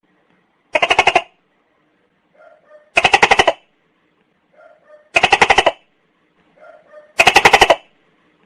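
Tokay gecko calling: four loud calls about two seconds apart, each a quick train of pulses lasting about half a second, with softer short notes just before each.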